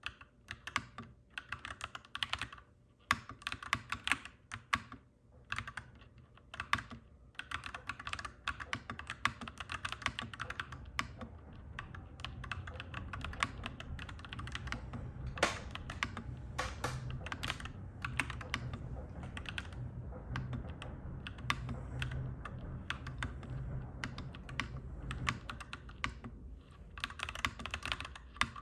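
Clacky mechanical keyboard typed on in quick runs of keystrokes, with brief pauses in the first few seconds. Under it, a low rumble of a passing train swells through the middle and fades near the end.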